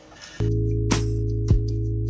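Music cuts in suddenly about half a second in, with low sustained bass notes and a sharp beat hit roughly every half second.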